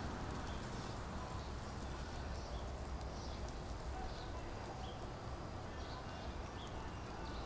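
Outdoor background noise: a steady low rumble with short, faint high chirps about every second.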